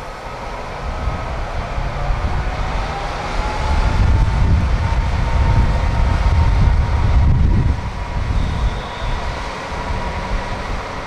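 Kiha 40 diesel railcar running: a heavy low rumble that swells in the middle and eases off near the end, with a thin whine rising in pitch and then holding steady.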